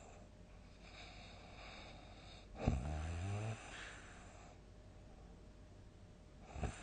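A sleeping person snoring between quieter breaths. One loud snore about two and a half seconds in lasts about a second and rises in pitch. A brief, sharp breath sound comes near the end.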